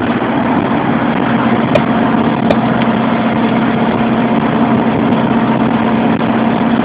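Cab noise of a Bürstner motorhome on the move: steady engine and road noise with a constant low drone, and two light clicks about two seconds in.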